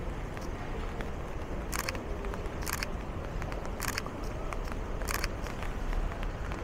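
Camera shutter clicking four times, about a second apart, over a steady low background rumble.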